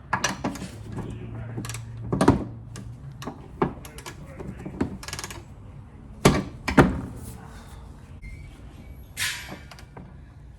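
Irregular knocks and clanks of hand tools and metal parts being handled while working on a car's rear suspension. The loudest comes about two seconds in, and two more come close together past the middle.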